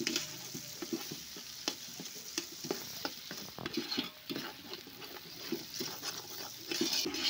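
Ginger-garlic paste and curry leaves frying in hot groundnut oil, on their way to brown: a steady sizzle with many small crackles and pops. A spoon stirs through the pan.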